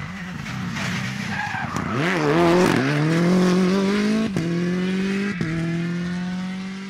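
Suzuki Swift R+ four-wheel-drive rally car accelerating along the road. The engine note rises, breaks off sharply twice as it changes gear, then holds steady and grows fainter near the end.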